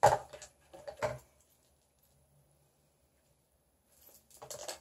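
Small plastic cosmetics being handled on a counter: a sharp click at the start and a couple of light knocks about a second in, then quiet, then a short run of rustling and clicking near the end as something is worked open in the hands.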